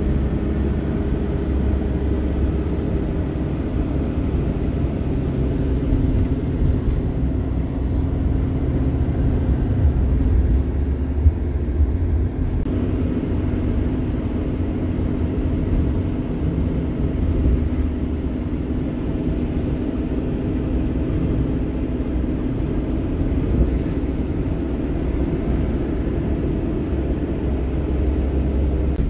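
Motorhome engine and road noise heard from inside the cab while driving on a highway: a steady low rumble with a constant engine hum, which shifts pitch about thirteen seconds in.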